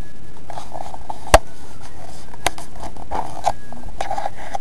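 Handling noise from a small camera being carried: rubbing and rustling over a steady hiss, with a few sharp clicks, the loudest about a second in.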